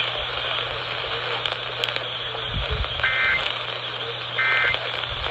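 Emergency Alert System end-of-message signal: two short, buzzy digital data bursts about a second and a half apart over radio hiss and hum, the first about three seconds in. They mark the end of a relayed alert.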